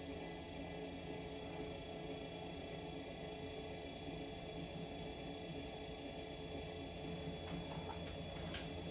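Electric pottery wheel running at a steady speed: a low motor hum with a steady high whine over it.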